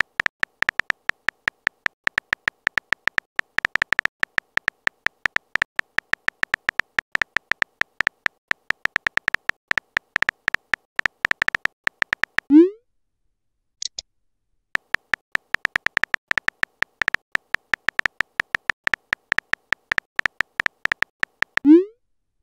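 Texting-app sound effects: a rapid run of synthetic keyboard-typing ticks, each with a thin tone, ending in a short rising pop as the message is sent. A brief high blip follows, then another run of typing ticks that ends in a second rising pop near the end.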